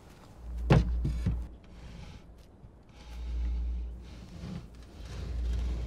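Wooden coffin lid being knocked loose and slid open: one sharp knock a little under a second in, two smaller knocks just after, then low rubbing and scraping as the lid slides.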